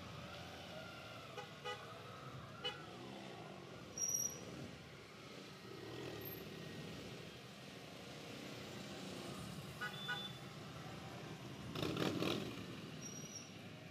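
Motorcycles riding by with several short horn beeps, and a louder pass swelling up about twelve seconds in.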